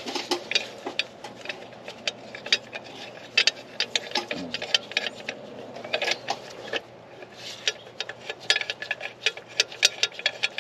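Hand socket ratchet clicking in quick, irregular runs of ticks as bracket bolts are run in on the power steering pump and alternator bracket.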